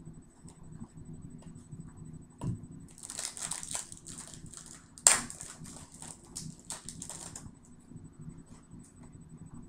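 A foil trading-card pack wrapper crinkling as it is handled and torn open, with one sharp loud rip about five seconds in and a soft knock before that.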